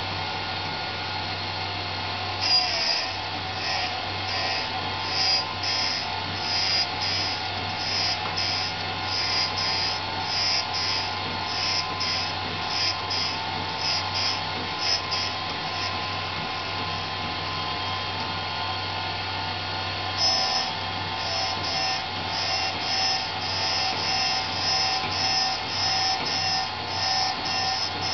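Sanford SG48 surface grinder running with a steady hum while its wheel takes roughing passes across a cold-rolled steel block. The grinding hiss comes in short repeated bursts as the table is cranked back and forth. It starts a couple of seconds in, stops for a few seconds after the middle, then resumes.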